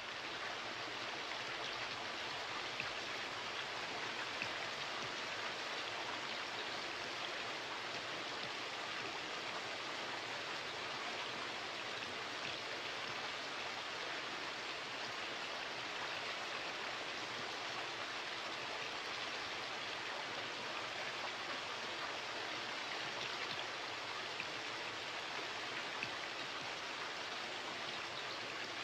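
Steady, even hiss at a constant level, with no speech or music.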